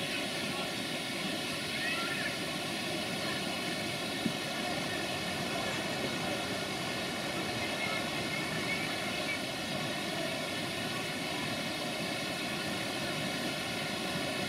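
Steady engine drone with an even, unchanging pitch and faint high chirps over it.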